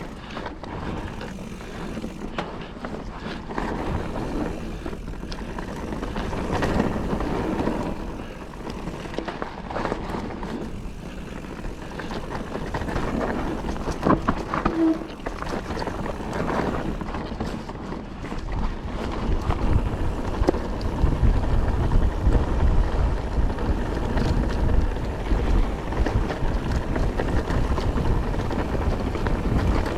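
Calibre Triple B mountain bike riding fast down a dry, loose dirt trail: tyres crunching and skittering over loose ground, with the frame and chain rattling and knocking over bumps. A heavier low rumble of wind buffeting the microphone comes in over the second half as speed picks up.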